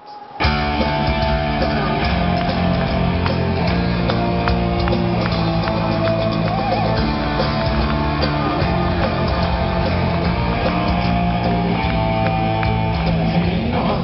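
Rock band playing live: electric guitar, bass guitar and drum kit in an instrumental intro with no vocals, starting abruptly about half a second in.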